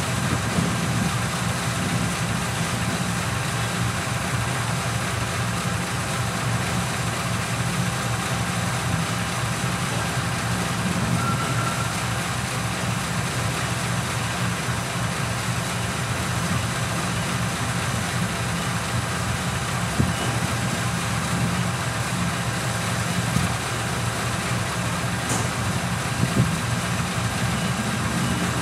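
Diesel engine of a GE-built CC 201 diesel-electric locomotive idling steadily while the locomotive stands still, with a low, even throb.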